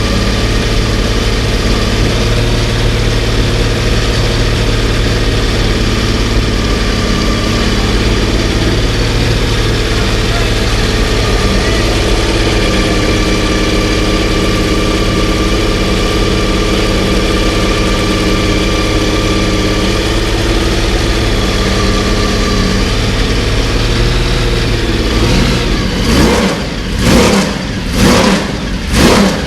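Porsche 917's air-cooled flat-twelve racing engine idling steadily, then being blipped, revving up and dropping back about once a second near the end.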